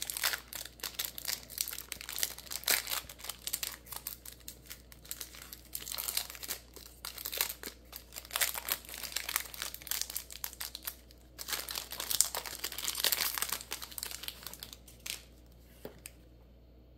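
Foil Pokémon booster-pack wrapper being torn open and crinkled by hand: a long run of dense crackling that dies away about fifteen seconds in.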